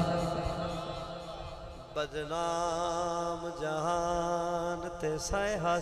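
A man chanting Punjabi rubai verse into a microphone in a drawn-out melodic style. The last held note of one line fades away over the first two seconds. About two seconds in, a new phrase begins with long, wavering held notes.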